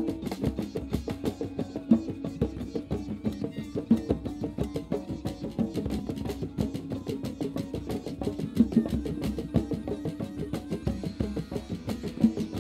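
Drum circle playing together: djembes struck with hands and mallets alongside a drum kit played with sticks, in a fast, busy, steady rhythm of many strikes a second.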